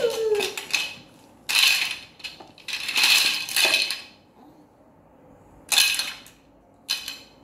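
Plastic toy pieces clattering and rattling in about five short bursts as a toddler handles and pushes them around. A brief childish vocal sound is heard at the very start.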